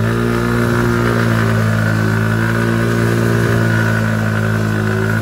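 Small motorcycle engine revved up and held at steady high revs, its pitch constant for several seconds, then dropping off right at the end.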